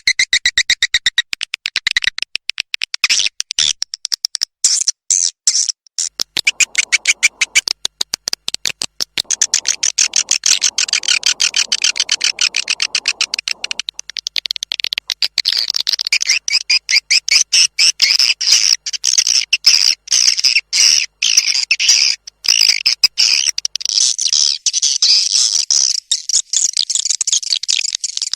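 Swiftlet call recording used to lure swiftlets into a nesting house: a fast, unbroken train of short, high-pitched chirps and clicks that grows denser and more continuous about halfway through.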